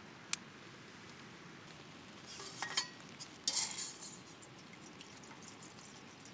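A long-nosed stove lighter clicks once. Then water is poured from a plastic bottle into a small metal cook pot, splashing loudest about three and a half seconds in.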